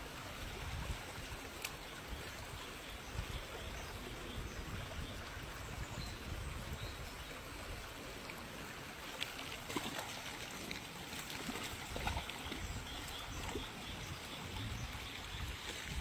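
Shallow stream running over stones: a steady rush of water, with an uneven low rumble underneath and a few faint clicks.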